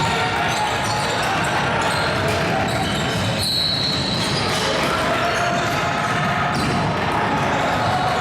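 A basketball bouncing on a gym floor during play, against a steady background of court noise and voices in a large hall.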